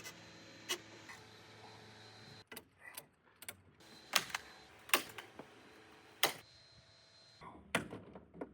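A handful of sharp clicks or taps at uneven intervals, over a faint steady hum.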